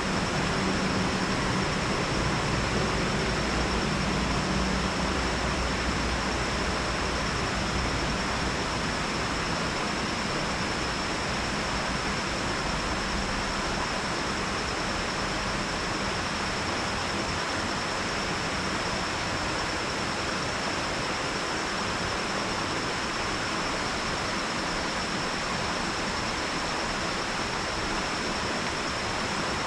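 Steady rush of water spilling over a dam into the creek below. A low hum fades out in the first few seconds.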